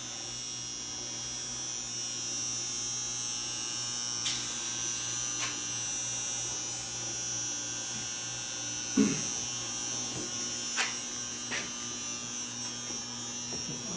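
Steady electrical hum with a high whine, with a few sharp clicks and one louder knock about nine seconds in, as metal fittings are handled at the base of the air compressor tank.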